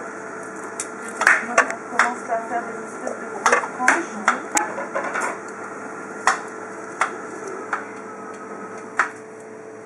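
Kitchen knife slicing a peeled root vegetable on a wooden cutting board, the blade knocking on the board in irregular strokes, over a steady hum.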